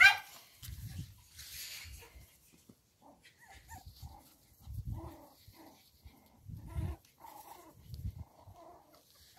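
Small terriers: one sharp yip right at the start, then faint, short whimpers scattered through, with a few soft low thumps.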